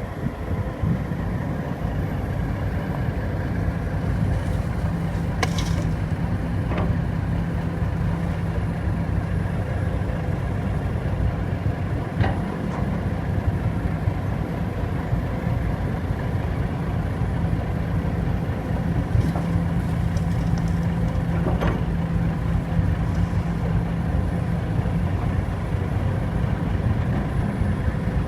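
Heavy diesel engine running steadily, with a few sharp knocks now and then.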